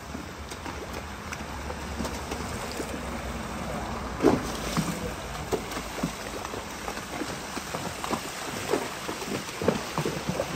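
Horses wading through a shallow creek, their hooves splashing and sloshing the water in irregular splashes that get louder about four seconds in.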